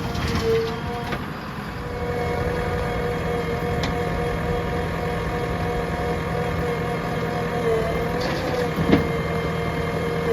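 Diesel engine of earth-moving machinery running steadily, with a steady whine over a low rumble and a couple of short knocks.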